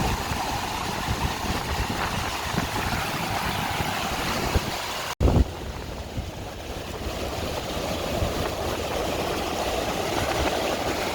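Ocean surf washing in steadily, with wind rumbling on the microphone; the sound drops out for an instant about five seconds in.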